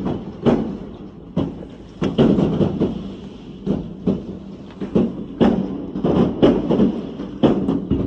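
New Year's fireworks going off outside, heard through window glass: an irregular, continuous run of sharp bangs and crackles, roughly one to two a second, each with a short echo.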